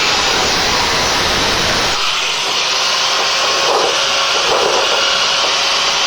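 Electric angle grinder grinding metal: a loud, steady rushing noise with a faint motor whine underneath.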